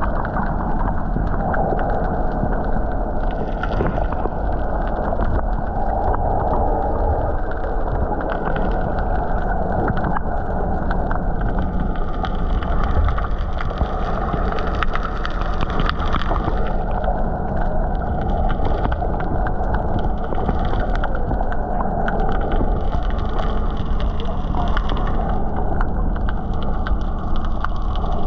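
Underwater sound picked up by a submerged action camera: a steady muffled rush of sea water with fine crackling clicks throughout and a faint low hum underneath.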